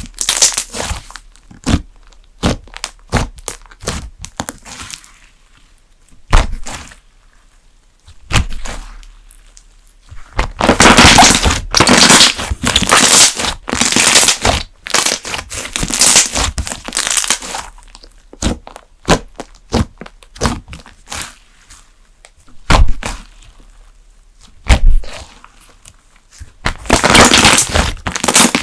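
Thick slime being pressed and stretched by hand, giving a stream of sharp pops and crackles, with dense runs about ten seconds in and near the end and sparser clicks between.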